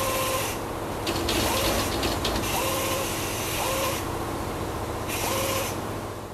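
Processing-plant machinery running steadily with a low hum, with a short pitched tone that rises and then holds, repeating about every second and a quarter.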